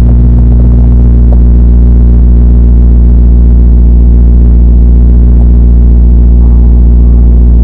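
Dodge Challenger's engine idling with a steady low rumble.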